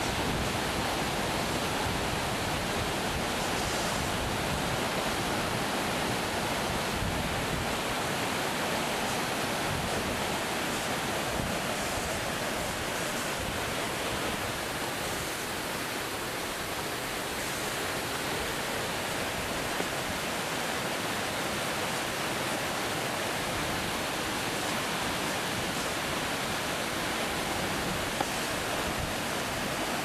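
Steady rush of a waterfall, water pouring down a rock face and splashing over boulders.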